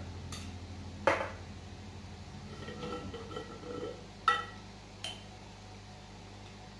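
Glass spice jar and metal spoon clinking against each other and the pot a few times as spices are handled: a handful of sharp, separate clinks, the loudest about a second in, over a steady low hum.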